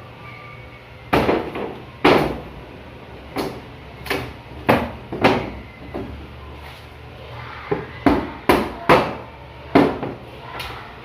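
Broken school cabinet being knocked apart: a dozen or so sharp, irregular blows, some in quick runs, each with a short ring.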